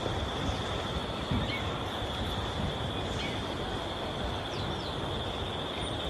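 A steady, high-pitched drone of insects in the forest, with close rustling and handling noise of leaves and twigs as wild coral fungus is picked.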